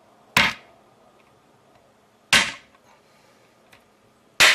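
Sledgehammer striking a black walnut on a wooden plank laid over a concrete floor: three sharp blows about two seconds apart, the last one cracking the hard shell.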